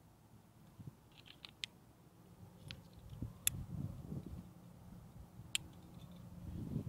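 Climbing gear clinking: a handful of sharp metallic clicks of a cam and carabiners knocking together on a harness rack as a cam is worked out of a crack, over soft rustling of clothing and gear.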